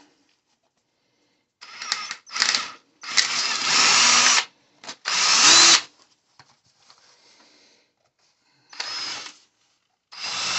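Ryobi cordless drill with a small bit drilling the body-mount holes back through a plastic RC truck body, run in about six short bursts of varying length after a silent first second and a half.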